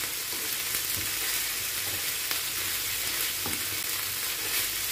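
Boneless chicken pieces sizzling steadily in oil and butter on a tawa, being fried dry so that their water cooks off and they brown. A wooden spatula stirs them and clicks against the pan a few times.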